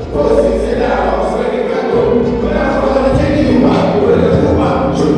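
Music with a choir singing in held notes at a steady, loud level.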